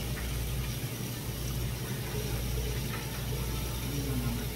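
Squid and sliced pork sizzling on a hot tabletop griddle, a steady hiss over a constant low hum.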